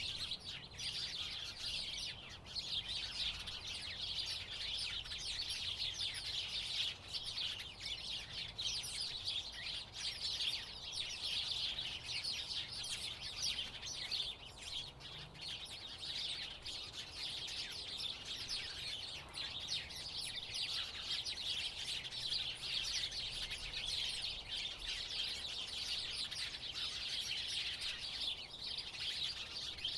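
A flock of house sparrows chirping: many overlapping short, high chirps in a continuous chatter.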